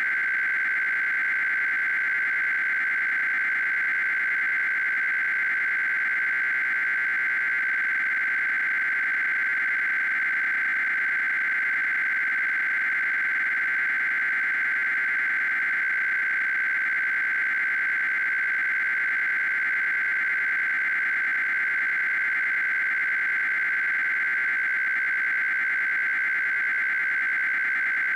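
Emergency Alert System SAME header data burst: a steady, high, raspy electronic screech of rapidly switching data tones. It encodes a Required Weekly Test alert.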